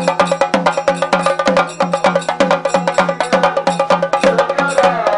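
Fast percussion music: drums struck in a steady rhythm at about five to six beats a second, over a steady pitched tone.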